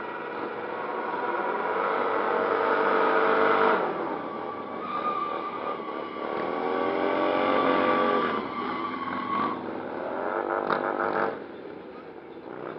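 Harley-Davidson cruiser motorcycles' engines revving hard during stunt riding, climbing in pitch twice, then dropping off sharply near the end.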